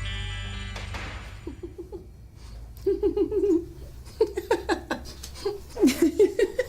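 Music ending in the first second, then people laughing in several short bursts of giggles.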